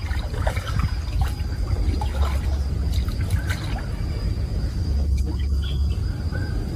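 Swimming-pool water splashing and trickling, over a steady low rumble.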